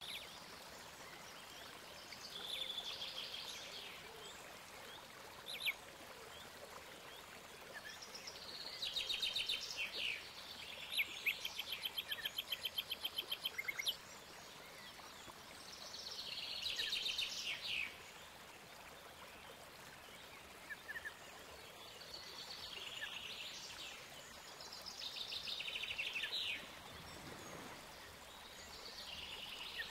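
Birds singing: short phrases of chirps and rapid trills every few seconds, over a faint steady hiss.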